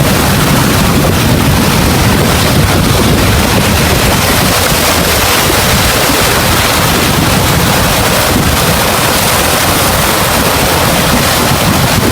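Loud, steady rush of wind buffeting the microphone over the noise of rough sea waves.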